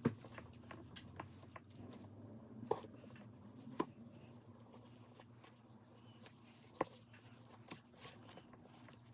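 Quiet handling while a MacBook battery is wiped clean: faint rubbing with four sharp clicks or taps of hard plastic, the first at the start and the others spread through the middle.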